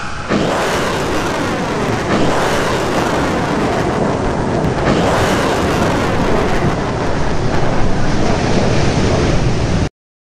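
A loud, continuous rushing rumble that swells a few times and cuts off suddenly near the end.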